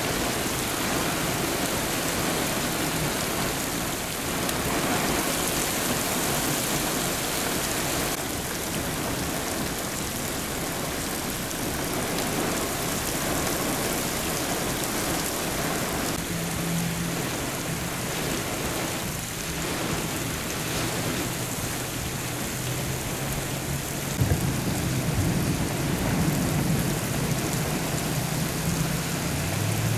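Heavy downpour hitting standing floodwater, a dense, steady hiss of rain. In the second half, a low engine hum from a vehicle in the flooded lot joins in and grows stronger near the end.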